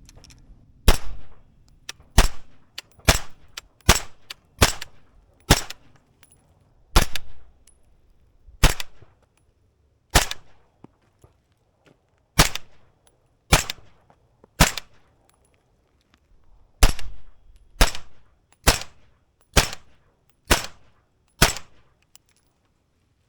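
Suppressed 7.5-inch 300 Blackout fired through a B&T Vers 36 Ti titanium suppressor: about eighteen single shots at roughly one a second, with a few short pauses between strings.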